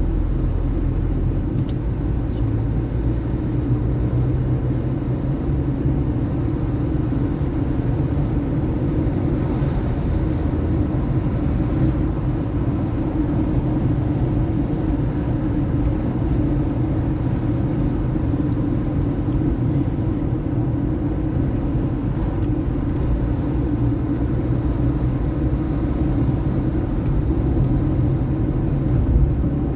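Steady rumble of a car being driven, engine and tyre noise running evenly with no sharp events.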